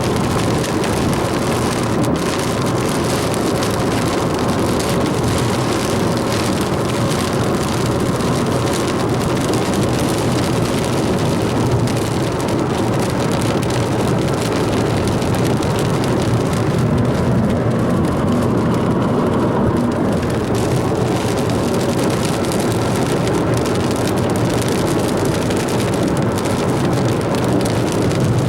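Steady noise of a car being driven through a storm: engine and road rumble mixed with rain on the vehicle.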